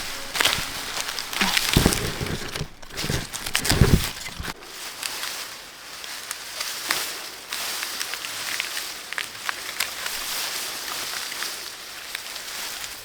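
Leaves and stems rustling as garden plants are handled, with a few soft thumps in the first four seconds and scattered small snaps.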